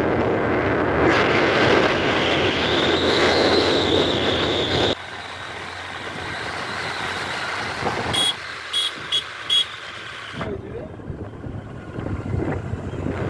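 Vehicle and road noise on a ride. It starts as a loud, even rushing sound and drops suddenly to a quieter rumble about five seconds in. Partway through come four short, high beeps in quick succession.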